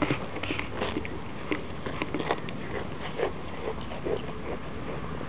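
Goats grazing at close range: grass being torn off and chewed in short, irregular crunches, several a second.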